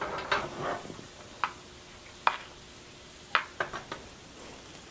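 A metal spoon stirring cashews frying in ghee in a small non-stick pan. It knocks against the pan in about eight sharp clicks at uneven intervals, bunched together near the end, over a faint sizzle of the frothing ghee.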